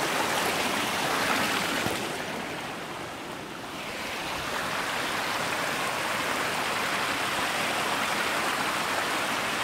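Small mountain brook rushing and splashing over rocks in little cascades, a steady hiss of water. The rush drops for a second or two about two seconds in, then comes back steady.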